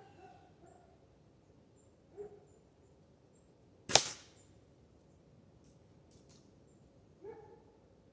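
A single sharp shot from a break-barrel spring-piston air rifle about four seconds in, with a short tail. Short animal calls are heard faintly near the start, about two seconds in and again near the end.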